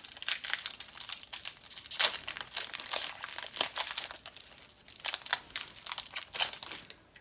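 Wrapper of a trading card pack being torn open and crinkled by hand, a dense irregular crackle that is loudest about two seconds in and stops near the end.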